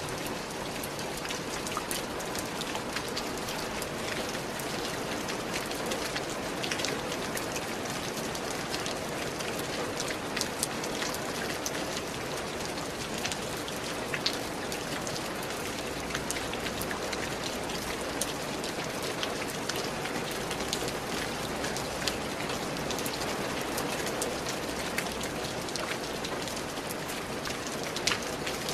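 Steady rain falling, a constant hiss with many scattered drop taps and an occasional sharper tick.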